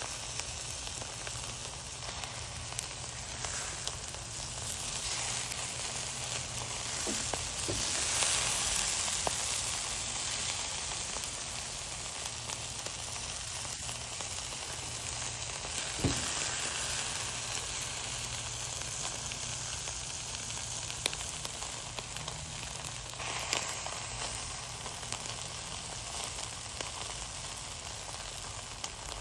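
Chicken inasal sizzling on a grill over charcoal: a steady hiss with scattered pops and crackles. The sizzle swells briefly about eight seconds in, and there is a sharper pop about sixteen seconds in.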